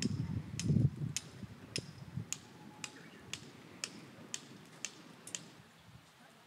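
A regular series of sharp ticks, about two a second, fading out about five seconds in, over a low rumble that is strongest in the first second.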